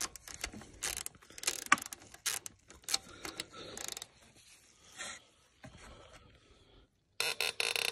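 Ratchet wrench clicking in short, irregular runs as the bolts of a new drive-belt tensioner are tightened down, with a quicker, louder run of clicks near the end.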